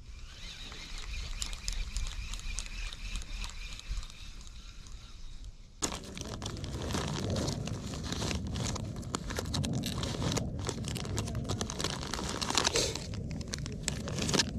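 Plastic soft-plastic lure packets crinkling and rustling as hands rummage through a zippered tackle bag, with dense crackling and clicks that start suddenly about six seconds in. The first six seconds hold only a steady hiss.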